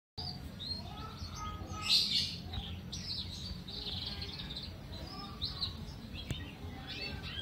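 Small birds chirping in short, scattered notes, a louder flurry about two seconds in, over a steady low background rumble.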